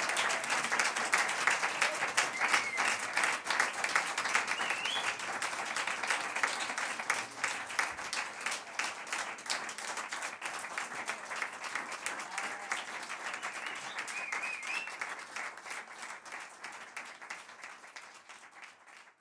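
Audience applauding with dense, even clapping that fades away steadily toward the end.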